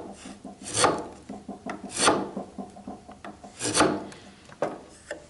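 Wide bench chisel paring shavings off timber down to a marked line: three scraping strokes about a second and a half apart, with a fainter fourth near the end.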